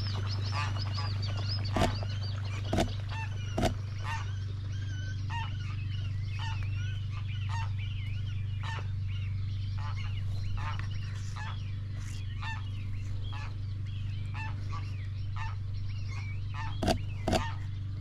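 Geese honking on the water: three loud honks in the first few seconds and three more near the end. Between them, songbirds chirp and sing continuously over a steady low hum.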